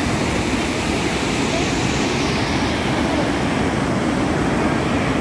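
Waterfall: a steady, even rush of falling water, its hiss thinning slightly about halfway through.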